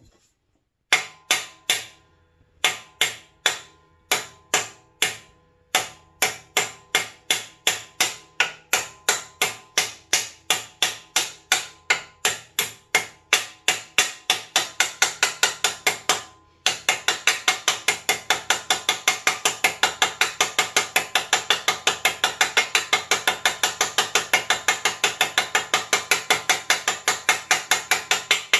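Hammer tapping a new sealed bearing into the swingarm of a Honda ATC 200X: sharp metallic strikes with a short ring after each, about two a second at first, then after a brief stop about halfway, about three a second.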